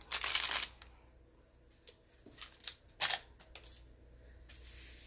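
Handling of a clear plastic bag of crystal stones: a short crinkle of the plastic at the start, then a few light clicks and knocks, one sharper about three seconds in.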